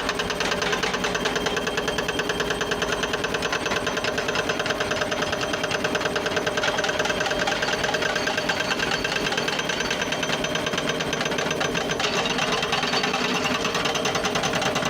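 An excavator's diesel engine running steadily under work, with a fast, even rattling pulse.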